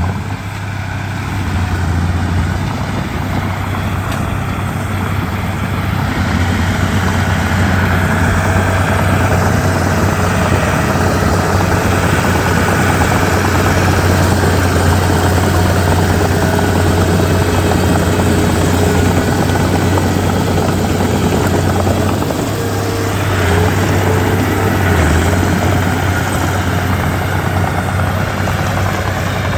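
Komatsu D31P bulldozer's diesel engine running steadily with a deep, even hum. It dips briefly about a second in and shifts for a moment about 22 seconds in.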